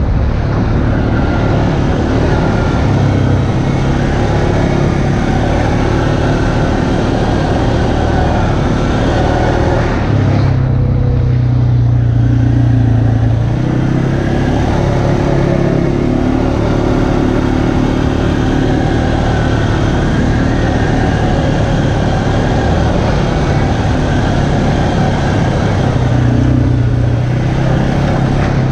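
ATV engine running under way on a dirt trail. Its note shifts with the throttle about ten seconds in and again near the end.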